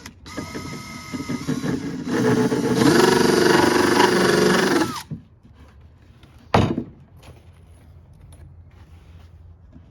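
Power drill running for about five seconds into plywood, getting louder about two seconds in and dipping in pitch under load before it stops. A single sharp knock follows about a second and a half later.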